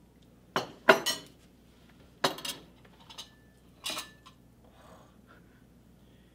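Wooden spoon knocking and scraping against the ceramic slow-cooker crock and a china bowl on its saucer while baked beans are served. A handful of sharp clinks, the loudest about a second in, the last near four seconds, some leaving a short ring.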